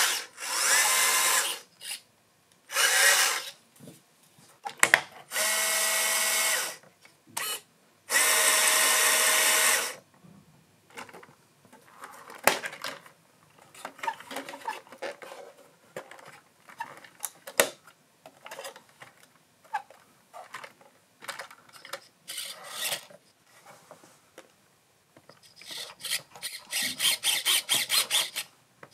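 A 1/12 scale RC crawler's electric motor and gearbox whining in four short bursts of throttle, then softer scattered clicks and scrapes, with a fast run of rasping pulses near the end.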